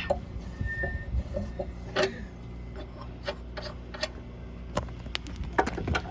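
Irregular metallic clicks and knocks of hand tools working on a car wheel during a tire change, over a low steady hum.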